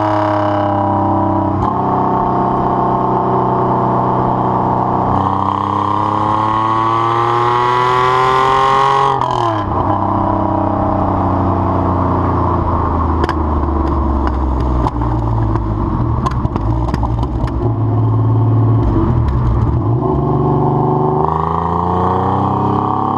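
TVR Tuscan's 4.0-litre Speed Six straight-six exhaust under load, the pitch climbing steadily, then dropping sharply as the throttle is lifted about nine seconds in. On the overrun the exhaust crackles with a run of sharp pops before the engine pulls and rises again near the end.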